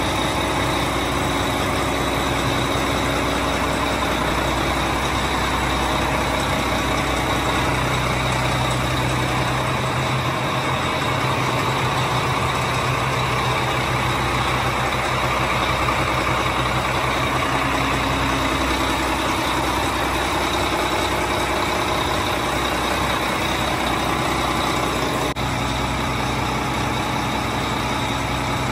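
Volvo Penta D12-450 marine diesel, a 12-litre inline six, running at a steady speed.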